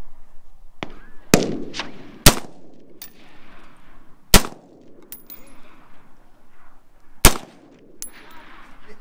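Rifle fired four times at uneven intervals, each a sharp crack with a short echo tail. A few fainter cracks fall in between.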